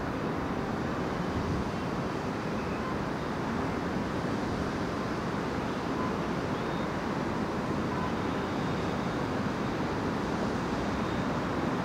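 Steady low rumble of heavy trucks and city road traffic, with no distinct beats or bangs.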